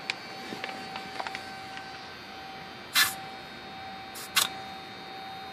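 Short hisses of air from an aircraft tire's valve stem as a pressure gauge is pressed on during a tire pressure check: one about three seconds in, then two quicker ones a little over a second later, after a few faint clicks.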